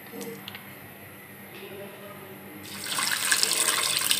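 Water poured from a jug into a cooking pot of raw chicken pieces and lentils, starting a little over halfway in and running on steadily.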